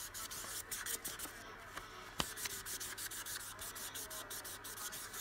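Felt-tip Magic Ink marker scribbling quickly back and forth on a colouring-book page, a steady run of short scratchy strokes. A single sharp click sounds a little over two seconds in.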